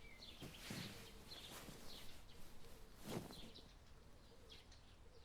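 Faint outdoor ambience of small birds chirping and twittering, with two soft rustling swishes, one about half a second in and another around three seconds in.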